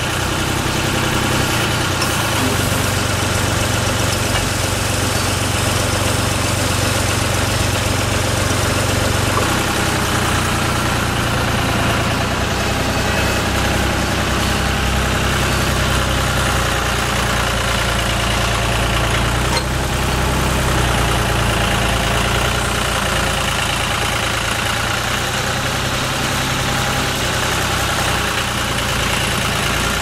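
Vermeer LM42 cable plow's diesel engine running at a steady speed, with no change in pitch or loudness.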